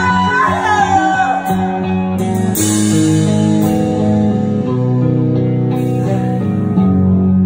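Live hard-rock band playing: a sung wail that bends in pitch over the first second and a half, then held electric guitar chords over bass and drums.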